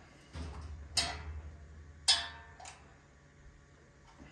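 Sharp metallic clinks from a steel brake pedal being worked onto its pivot in the pedal-box bracket: two loud ones about a second apart and a fainter third, over a low hum.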